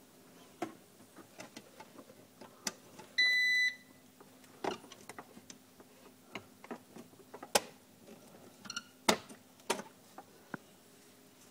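A single electronic beep, about half a second long, from the Power Air Fryer's control panel, about three seconds in, with scattered light clicks and knocks of handling around it.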